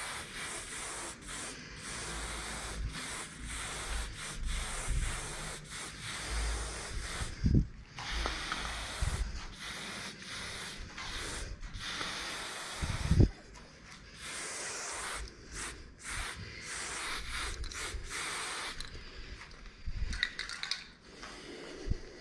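Aerosol spray paint can hissing in stop-start bursts of varying length as paint is laid onto a concrete wall. Two short dull knocks stand out, one about a third of the way in and one just past the middle.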